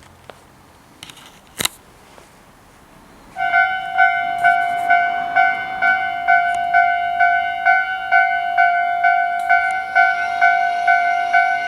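Japanese railway level crossing's electronic warning bell starting up about three seconds in after a single sharp click, a loud two-toned ding repeating about twice a second. Near the end a second, higher ringing tone joins in.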